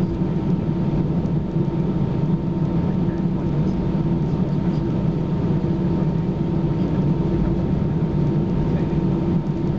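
Cabin noise of an Airbus A320-214 taxiing, heard from a window seat over the wing: its CFM56-5B engines give a steady hum and rumble at low power, with a thin steady whine above, and the level holds without any spool-up.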